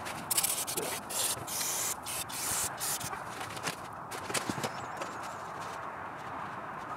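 Aerosol cleaner hissing from a spray can in several short bursts onto an intake manifold runner to clean off gummed-up deposits, over the first three seconds. A few light clicks follow.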